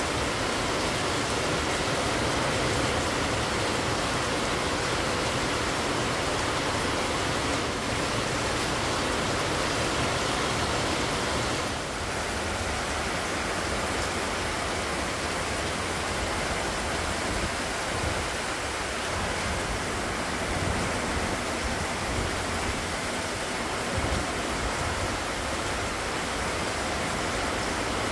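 Heavy rain pouring down in a steady, loud hiss, dipping slightly in level about twelve seconds in.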